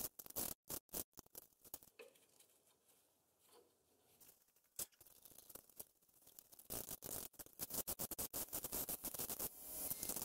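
Faint scraping and clicking of metal parts being worked at a truck's rear leaf spring and axle. A few scattered clicks come at first, then it is mostly quiet, and about two-thirds in a dense run of scratchy clicking starts.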